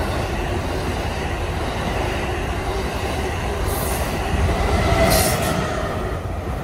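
Train rolling on the rails with a steady low rumble and faint wheel squeal. A short hiss comes about five seconds in.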